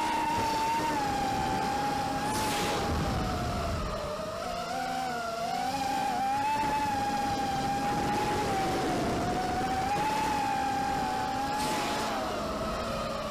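ZMR250 racing quadcopter's Cobra 2208 2000kv brushless motors whining, the pitch wavering up and down with a few short dips, on a quad whose owner says it has developed intermittent hiccups. Two brief rushing hisses come about two seconds in and near the end.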